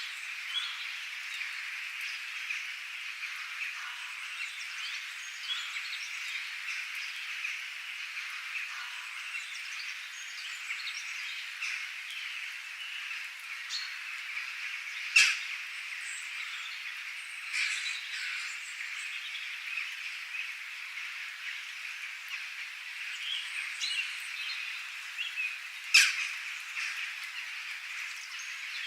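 Birds chirping over a dense, steady, high-pitched chorus, with two sharp clicks, one about halfway through and one near the end.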